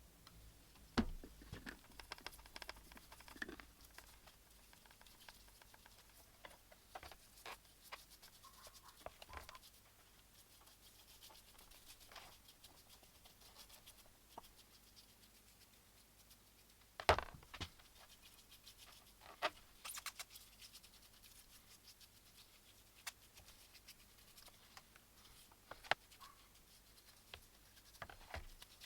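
Faint, scattered clicks, taps and light scrapes of metal parts being handled on a workbench, with sharper knocks about a second in and about seventeen seconds in.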